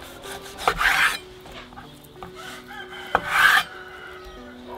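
Kitchen knife slicing through raw beef chuck roast on a wooden cutting board: two cuts about two and a half seconds apart, each a brief rasping slice with a sharp tap of the blade.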